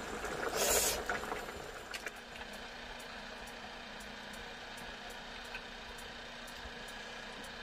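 A brief loud noise about a second in, then a steady machine-like hum with faint regular ticking.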